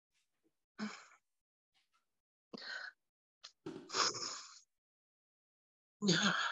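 Several short, soft sighs and breaths through the silence of a pause, each under a second long with dead silence between them, then a voice starts speaking near the end.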